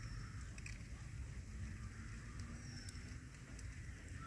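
Faint outdoor background: a low steady rumble, with two short, high, falling chirps from a small bird near the start and about two and a half seconds in.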